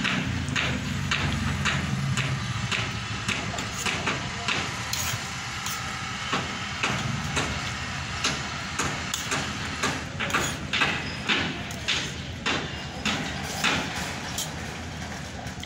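A steel spoon clinking and scraping against a steel plate of rice, with chewing and mouth noises of eating; many short irregular clicks. A low steady rumble runs underneath, strongest near the start.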